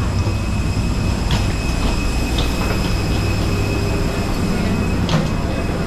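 Steady low mechanical rumble with a faint high steady whine from a parked airliner's machinery and the jet bridge at the aircraft door, broken by a couple of sharp knocks from footsteps on the jet bridge floor about a second and a half in and again near the end.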